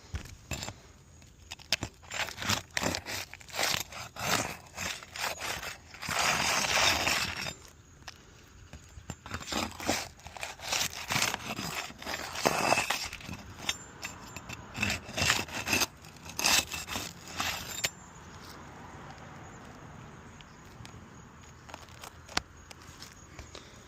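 Asphalt roof shingle being pried up by hand: a run of irregular scrapes, clicks and crackles as the sealed tabs break loose, with two longer scrapes. The work stops about eighteen seconds in, leaving only faint steady background noise.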